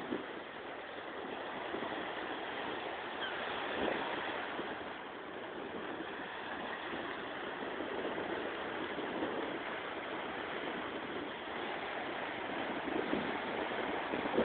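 Small sea waves breaking and washing up a sandy beach: a steady rush of surf that swells a little every few seconds.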